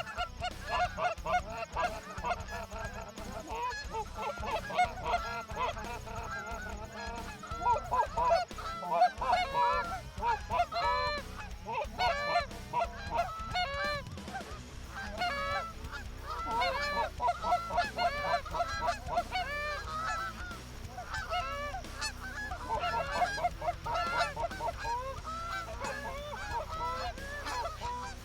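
A flock of Canada geese honking, many short calls overlapping without a break.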